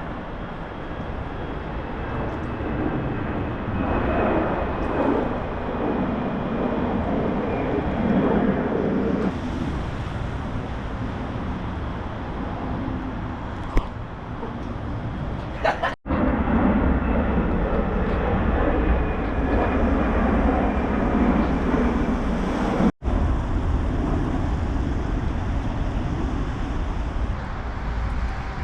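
Jet airliners flying low overhead on the airport's approach or departure path, a loud continuous drone echoing off tall buildings. The sound breaks off abruptly twice, about 16 and 23 seconds in, and resumes each time.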